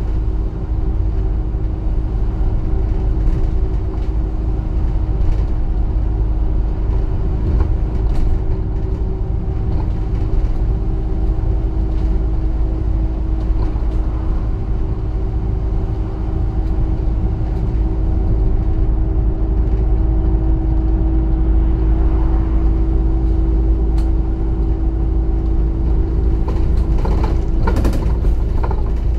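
ADL Enviro400 double-decker bus on the move, heard from on board: a steady engine and drivetrain hum over deep road rumble, with a few brief rattles or knocks near the end.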